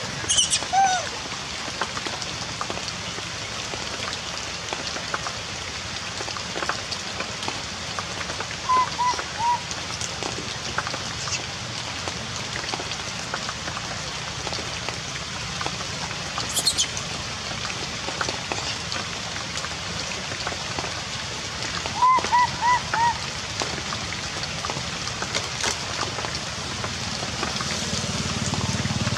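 Steady heavy rain falling, with a few short high calls over it: a quick squeal at the start, then two short runs of three or four quick notes.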